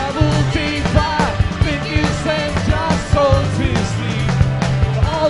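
Live rock band playing: drums with a regular beat under bass and electric guitars, and a melodic line bending up and down over them.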